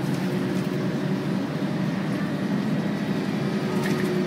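Volvo B10BLE single-deck bus running, heard inside its passenger saloon: a steady engine drone with a constant hum that holds its pitch throughout.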